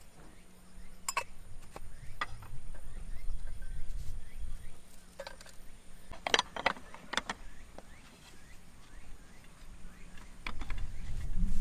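Light clicks and taps of pour-over coffee gear being handled on a wooden camp table: a hand coffee grinder tipped into a dripper and set down, with a quick cluster of knocks about six seconds in. A low rumble sits under the first few seconds and grows louder near the end.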